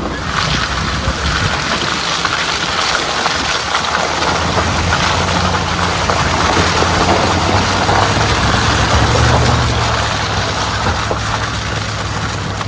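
Vehicle engine running: a steady low drone under a rushing noise. It swells a little about nine seconds in, then eases.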